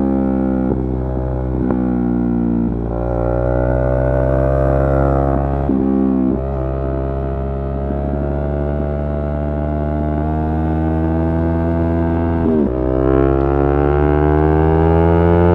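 Yamaha R3's parallel-twin engine running under way. The pitch eases off over the first couple of seconds, then climbs with throttle. There are short breaks about six seconds in and again near the end, where it drops and climbs again, as on an upshift.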